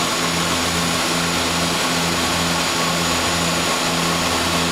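Inside the cockpit of a de Havilland Canada DHC-6 Twin Otter in flight: its two Pratt & Whitney Canada PT6A turboprop engines and propellers run steadily, a constant low propeller drone over airflow hiss.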